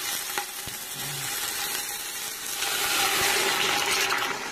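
Seared beef roast sizzling in the hot stainless Instant Pot liner on sauté. About two and a half seconds in, the hiss grows louder as chicken broth goes into the hot pot to deglaze it.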